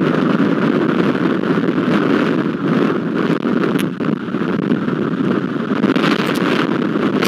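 Wind and rain blowing across an outdoor camera microphone: a loud, steady rushing noise with a few brief dips.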